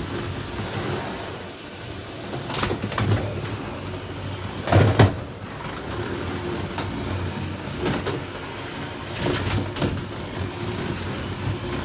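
Lego combat robots' small electric motors whirring as they drive, with plastic parts clattering and knocking as the robots collide, the loudest crash about five seconds in.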